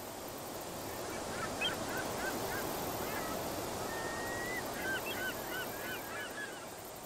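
Geese honking in two bouts of quick, repeated calls, with one longer drawn-out note between them, over a steady rushing background wash.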